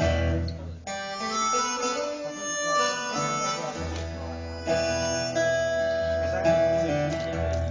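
Harmonica playing a melody over strummed acoustic guitar, with a long held note about five seconds in.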